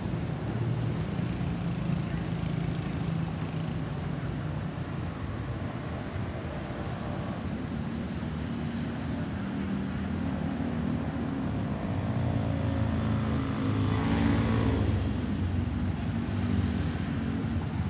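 Boeing 737-800's CFM56 jet engines heard as a steady low rumble overhead, slowly growing louder. A louder swell that reaches higher pitches comes about fourteen seconds in.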